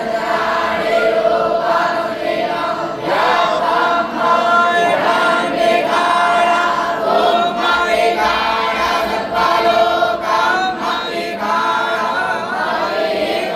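Many voices chanting together in unison, a continuous sung recitation with long held notes.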